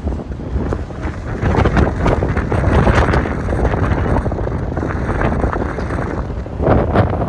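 Storm wind gusting hard against the microphone, a loud rough rumble that swells and eases in gusts.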